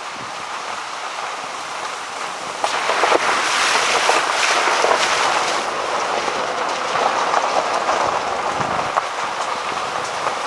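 Tyres rolling over a wet gravel trail, a steady crunching and crackling with wind noise on the microphone, growing louder about three seconds in.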